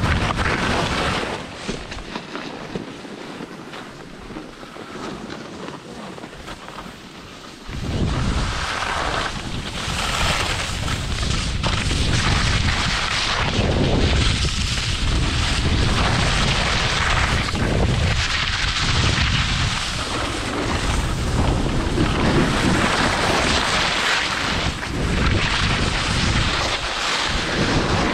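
Wind buffeting an action camera's microphone while skiing downhill, over the hiss of skis sliding on packed snow. About eight seconds in the buffeting turns much louder and deeper.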